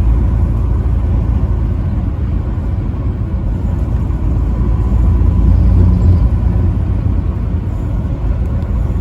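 Steady low rumble of a truck driving on the road, engine and tyre noise together, with a faint steady whine above it.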